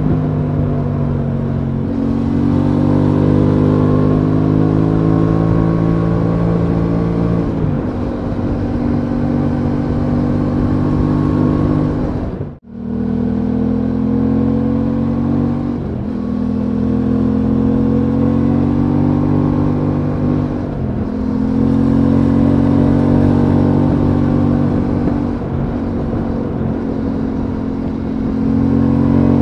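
Aprilia Tuono 660's parallel-twin engine running under way, its pitch climbing and then dropping back several times as the bike is ridden. The sound cuts out for a moment about twelve seconds in.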